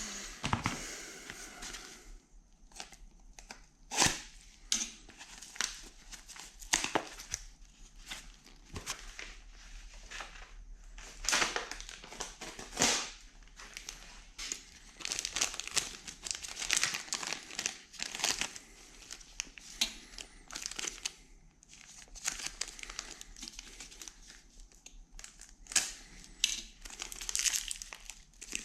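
Packaging crinkling and rustling as new spindle parts are unwrapped and handled, with scattered sharp clicks and knocks.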